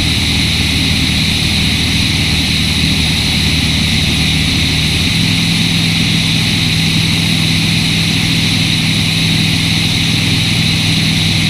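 Light sport aircraft's propeller engine running steadily in cruise, a loud drone with air rushing over it. About five seconds in the engine note shifts slightly.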